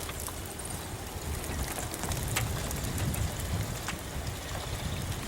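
Rain falling on a vehicle, a steady patter with scattered sharper drop hits over a low rumble.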